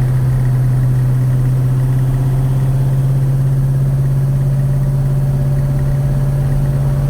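Chevy 307 small-block V8 running steadily at an even engine speed, with a light valve-train tick like a sewing machine; the owner takes it as a sign the valves need tightening a little more.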